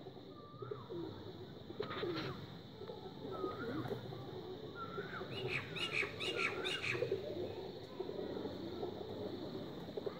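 Domestic pigeons cooing in a continuous low murmur, with scattered short rising chirps from other birds and a quick run of higher chirps about five to seven seconds in.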